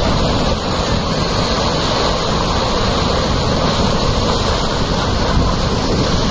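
Muddy floodwater rushing and churning in a steady torrent against a concrete wall, with wind buffeting the microphone.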